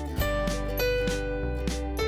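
Instrumental background music with sustained pitched notes over a steady beat of about two strokes a second.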